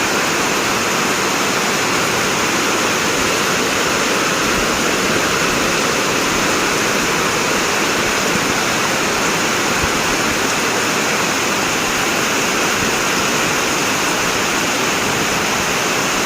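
Heavy rain pouring down, a loud steady hiss that does not let up.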